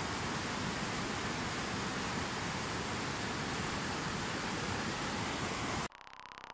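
Fast white-water mountain river rushing over rocks: a steady, even rush of water. It cuts off abruptly near the end, leaving a much fainter, evenly pulsing sound.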